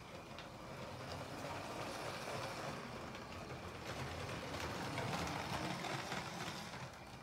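Lego train running on plastic track: a steady whir and rattle that grows louder past the middle and eases near the end.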